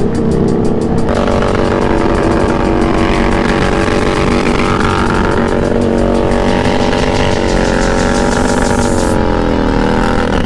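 Motorcycle engine running hard on the road. Its pitch steps up about a second in, holds fairly steady with small rises and dips, and eases down near the end.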